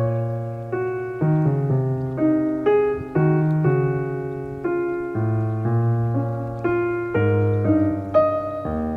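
Soft background piano music: gentle chords and melody notes struck one after another, each fading away, over a slowly changing bass.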